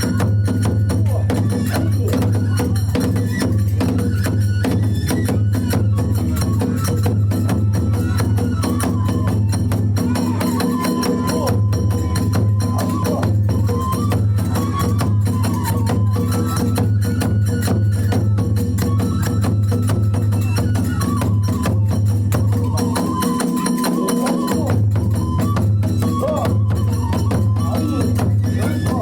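Kagura hayashi ensemble playing fast fight music: drums and small hand cymbals beat a dense, driving rhythm under a wavering bamboo-flute melody.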